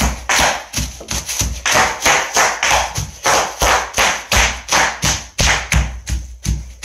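Bubble wrap popping and crackling under a small child's stomping feet, about three stomps a second, each with a dull thud.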